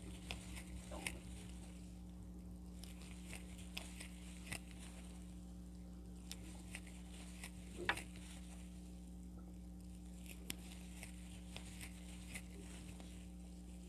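Faint, scattered ticks and rustles of a crochet hook and yarn being worked through double crochet stitches, with one louder tick about eight seconds in, over a steady low hum.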